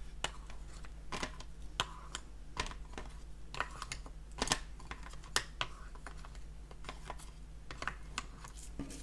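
Packaging of a colored pencil set being opened and handled: irregular light clicks and taps with some faint rustling.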